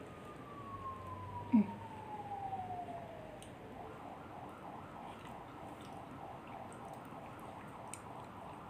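A distant siren: a single tone winding slowly down in pitch over the first few seconds, then a faint pulsing tone of about three beats a second. A short loud low sound comes about one and a half seconds in.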